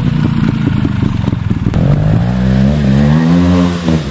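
Trials motorcycle engine running at low revs with a rapid, even firing, then revved up about two seconds in, its pitch rising and falling back near the end.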